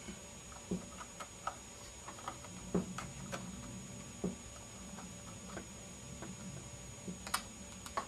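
Faint, scattered small clicks and taps of fingers working a laptop RAM stick into its memory slot, with a sharper click about seven seconds in.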